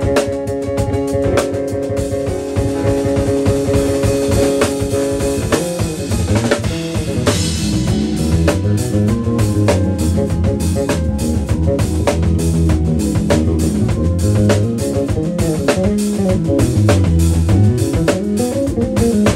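Live funk jam on electric bass guitar and drum kit. Held chords sound at first; about six seconds in a busy, moving bass line takes over under steady drumming, with a cymbal crash about eight seconds in.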